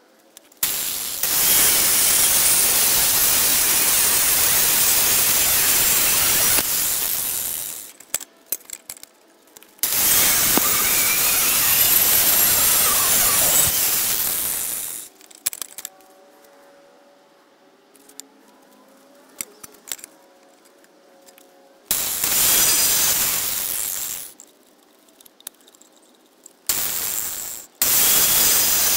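Angle grinder cutting into a steel lawnmower blade in several passes: a long one of about six seconds, another of about five, then shorter ones, with the grinder's noise falling away almost to nothing between cuts.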